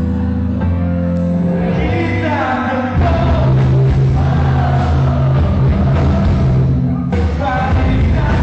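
Live rock band playing, with a singer's voice wavering over it; about three seconds in the band comes in fuller and louder.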